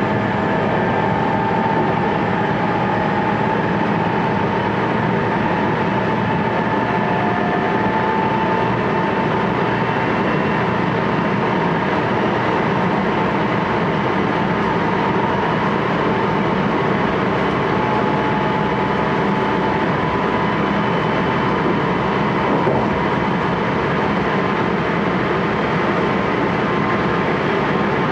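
Running sound inside a JR West 223 series 1000 motor car, the second-batch type fitted with a Hitachi VVVF inverter: a steady rumble of wheels on rail with a faint, nearly steady motor whine.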